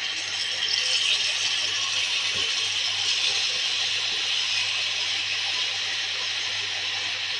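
Chopped spinach sizzling in hot oil and tomato masala in a cooking pot as it is tipped in and stirred: a steady crackling hiss that grows a little louder about a second in, over a faint low hum.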